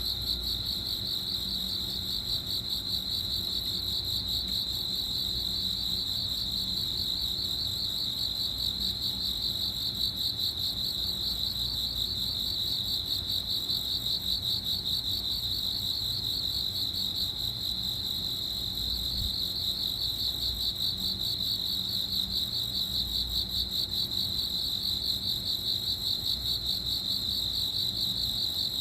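Cricket chirping in one unbroken high-pitched trill, made of very fast, even pulses.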